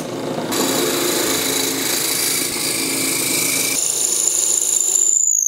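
Drill press running as its bit bores a starter hole into a purpleheart wood blank. About four seconds in the sound changes to a thinner, high steady whine, which stops abruptly near the end.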